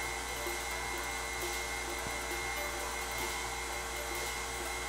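Electric stand mixer's motor running steadily with an even whir, driving a spiralizer attachment fitted with the fine shredder blade as it cuts vegetables into spirals.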